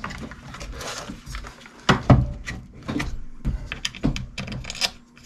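A series of knocks and thunks as an Arrma Typhon 3S RC buggy is handled and flipped over on a workbench, its plastic chassis and rubber tyres bumping the bench top. The loudest knock comes about two seconds in, followed by several lighter ones.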